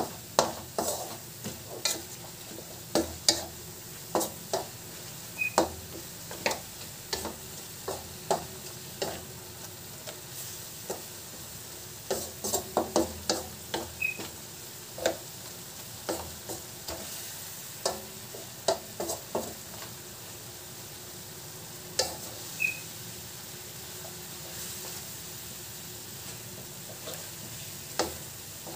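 Pork pieces sizzling in soy sauce in a wok while a wooden spatula stirs them, knocking and scraping against the pan in irregular clusters of clicks over a steady sizzle. The meat is being stirred until it absorbs the soy sauce.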